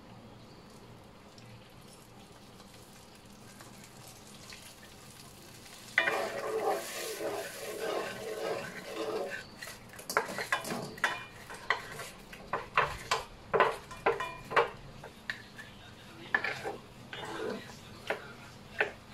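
Buffalo sauce of butter and hot sauce sizzling faintly in a stainless-steel wok, then a louder stretch of sizzling and stirring about six seconds in. From about ten seconds, fried chicken wings drop into the wok and a wooden spatula stirs them, with repeated knocks and scrapes against the pan.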